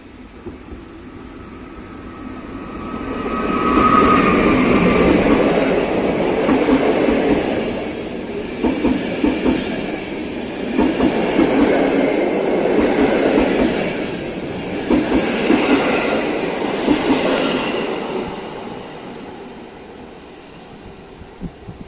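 Passenger train hauled by an EP07 electric locomotive passing at speed. The sound builds as the locomotive approaches, then the carriages run by with rhythmic wheel clicks over the rail joints, and it fades away near the end.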